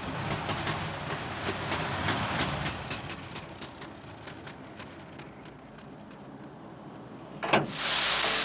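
A failing engine running with a regular ticking, about four ticks a second, that fades away. About seven and a half seconds in, a sharp clunk as the car's hood is raised, then a loud hiss of steam escaping from the engine bay.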